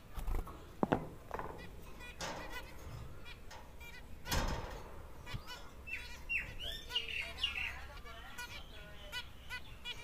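Zebra finches calling: short, nasal beeping calls repeated throughout, with a brief run of warbled song about six seconds in. A couple of brief thumps from the birds moving about the cage.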